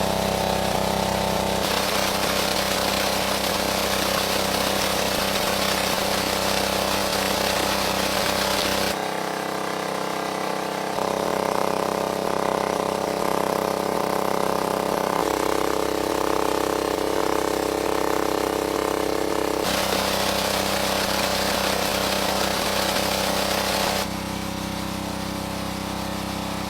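A steady motor-like hum with a hiss over it. Its pitch and tone change abruptly several times, about every four to eight seconds.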